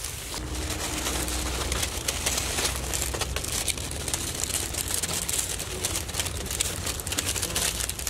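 Dry fallen leaves crackling and crinkling as people seated on them shift and work, irregular little crackles over a steady low rumble.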